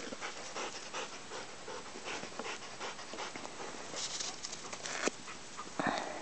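A dog panting in quick, uneven breaths, with a sharp click about five seconds in.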